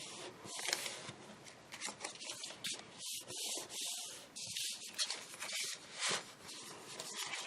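Paper rubbed and rustled by hand as folds are pressed down and smoothed, in soft, irregular scrapes and swishes.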